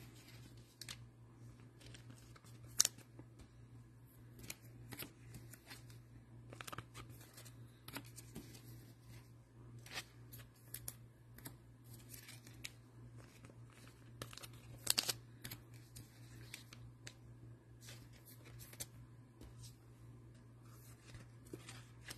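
Trading cards being handled off-camera: scattered light clicks and rustles, the sharpest click about three seconds in and a cluster of them around fifteen seconds, over a steady low hum.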